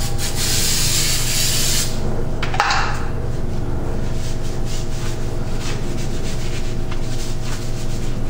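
Aerosol brake cleaner spraying onto a steel jet-pump shaft in one hissing burst of about two seconds, then a rag rubbing the shaft in quick irregular wiping strokes.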